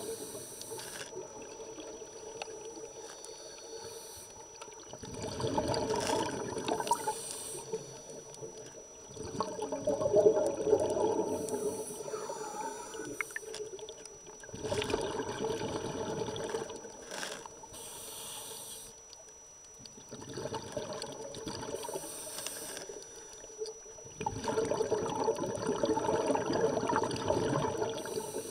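A scuba diver breathing through a regulator, recorded underwater: a bubbling rush of exhaled air about every five seconds, with a thinner hiss at each inhalation in between.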